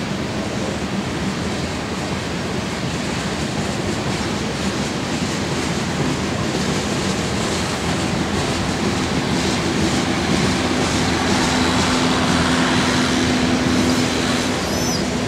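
Freight cars of a mixed freight train rolling past on steel rails: a steady rumble of wheels on track that grows a little louder in the second half, where a steady tone joins it.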